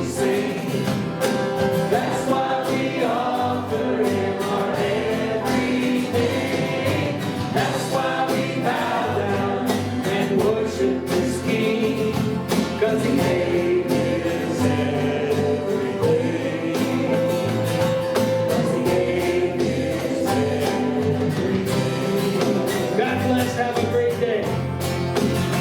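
Gospel-style worship song: several voices singing together over instrumental backing, with long held notes.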